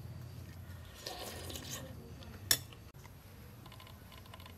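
Metal spoon scraping and clinking in a glass bowl of rice porridge, with one sharp clink about halfway through.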